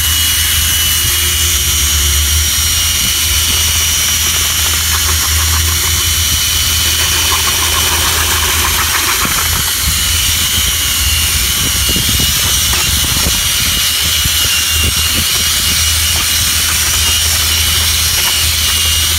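Electric drill with a paddle mixer running steadily, churning thick SikaTop 123 Plus repair mortar in a plastic bucket, with a steady motor whine. The mortar is nearly at the stiff, cookie-dough consistency wanted, the final stage of mixing.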